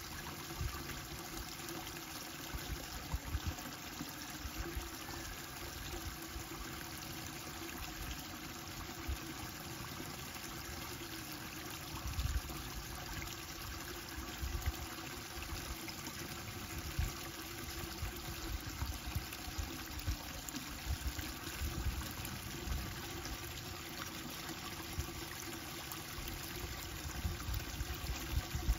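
Steady rushing noise of running water, with irregular low thumps and bumps through it.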